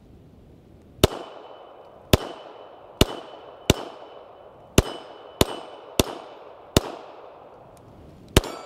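IMEZ IJ70-17AH double-stack Makarov pistol in .380 ACP fired nine times in slow, steady succession, about a second between shots. Several shots are followed by a short metallic ring from hits on steel targets.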